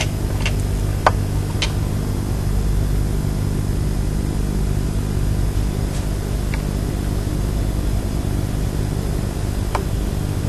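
A steady low mechanical hum throughout, with a few light clicks and taps scattered through it.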